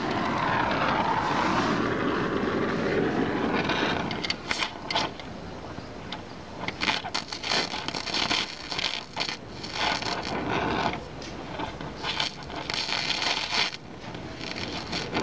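An aircraft flying over, fading away about four seconds in. After it, an oxyacetylene welding torch hisses in uneven bursts as its flame is worked along a car's steel running board.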